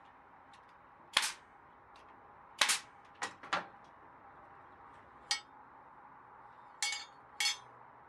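About seven short, sharp clacks and knocks at irregular intervals, two of them close together near the end with a brief ringing tail, the sound of hand work on wooden pieces while gluing them up.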